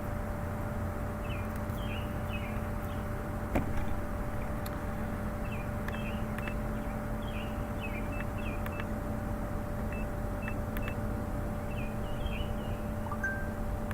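A steady electrical-sounding hum with small birds chirping repeatedly over it, and a single short beep near the end.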